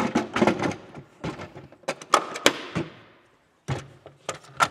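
Hard plastic clicks and knocks as the bottom dust compartment of a wall-mounted retractable vacuum is handled and fitted back into the housing: a quick clatter at the start, a second run of knocks about a second later, and a few sharp clicks near the end.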